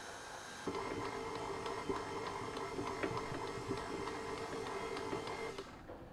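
KitchenAid Artisan stand mixer running, its dough hook kneading bread dough in the steel bowl: a steady motor whine with many light knocks as the dough turns against the bowl. It gets louder about a second in and stops sharply near the end.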